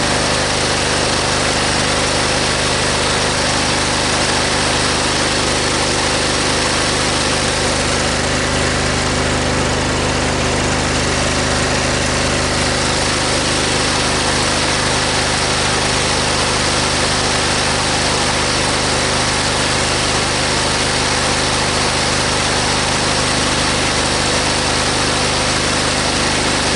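Briggs & Stratton V-twin lawn tractor engine running steadily at a constant speed.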